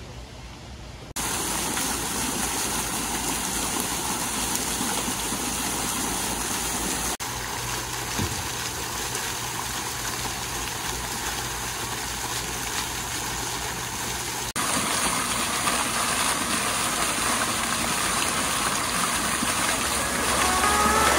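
Fountain jets splashing into a basin: a steady, even rush of falling water that cuts in abruptly about a second in, breaking off briefly twice.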